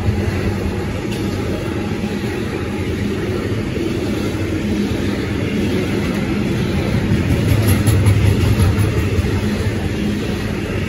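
A long freight train of covered bogie wagons rolling past close by: a loud, steady rumble of wheels on the rails with a low hum, swelling a little about three-quarters of the way through.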